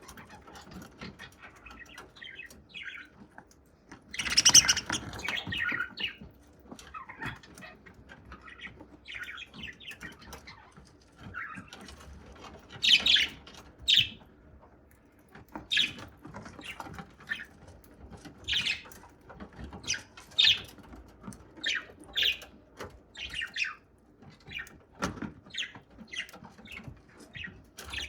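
Budgerigar chirping in short separate calls, about one a second, with a louder, longer harsh call about four seconds in.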